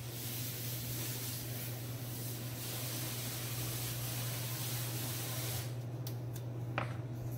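A steady hiss that starts abruptly and cuts off sharply about six seconds in, over a steady low hum, followed by a few light clicks near the end.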